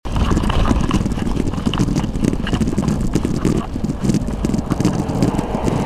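Wind buffeting the microphone of a bicycle-mounted camera while riding, along with road rumble: a loud, dense, irregular low flutter.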